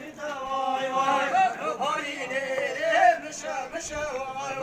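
A man's voice singing a chant-like melody, with long held, slightly wavering notes.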